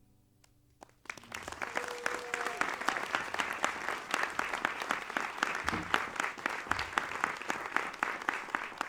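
Audience applause: after about a second of near silence, many people start clapping together and keep up a dense, steady clapping.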